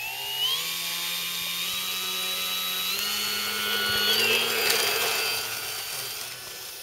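Electric motor and propeller of a radio-controlled Pilatus Porter model plane whining as the throttle is opened for the takeoff run, the pitch stepping up several times. It is loudest about two thirds of the way in, then fades as the plane moves away.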